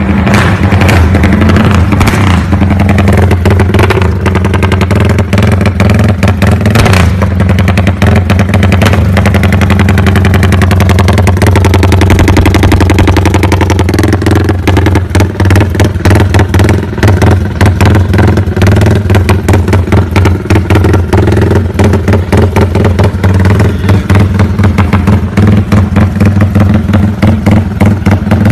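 Yamaha Sniper 150's single-cylinder four-stroke engine running loud and close, at a fairly steady speed, with a rapid stream of exhaust pulses that grows uneven in the second half.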